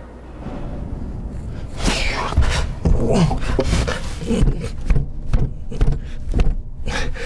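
Irregular knocks and thumps over a low rumble as a man climbs a wooden ladder up into an attic hatch, thickening from about two seconds in.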